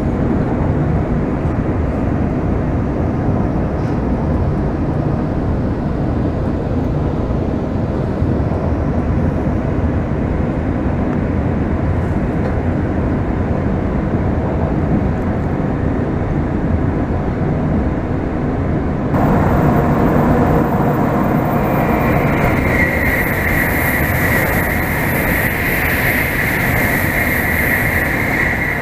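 Shinkansen bullet train running, heard from inside the car: a steady rumble of wheels on rail. About two-thirds of the way in a sudden louder rush with a high hiss begins, joined by a steady whine, and it cuts off abruptly just before the end: a train on the next track passing close by the window.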